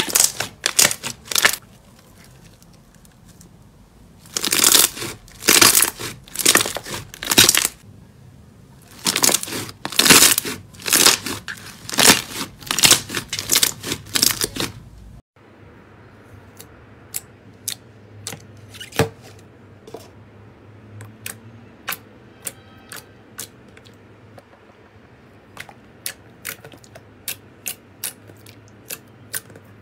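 Hands squeezing and kneading a large blob of purple glitter slime, giving loud wet squishing bursts, one per press. About halfway through, after a sudden break, a glossy peach slime gives quieter, sharp little pops and clicks at irregular intervals as fingers poke into it and press out the trapped air.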